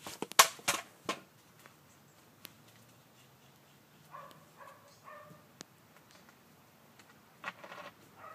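A plastic soda bottle handled in a plastic tub: a few sharp knocks in the first second, then a short squeaky creak about four seconds in, and light handling clicks near the end.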